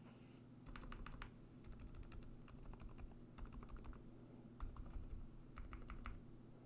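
Typing on a kbdfans D84 v2 mechanical keyboard fitted with lubed and filmed Durock Dolphin silent linear switches and PBT Cherry-profile keycaps. The quiet, soft key strokes come in several short bursts, beginning about a second in.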